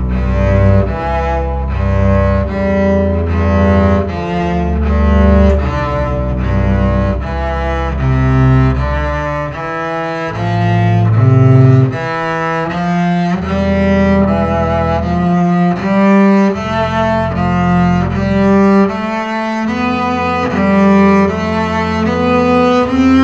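Two double basses played with the bow in a duet, a steady run of sustained notes changing about once a second, with the pitches sitting low.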